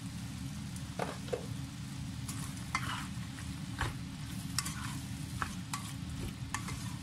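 Black plastic spatula stirring chicken pieces in a nonstick pot, scraping and tapping against the pot irregularly, while the chicken sautés with a light sizzle.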